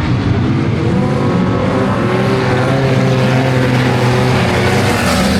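Speedway race car engines running loud on the track, several engine notes rising and falling over one another as the cars accelerate and ease off.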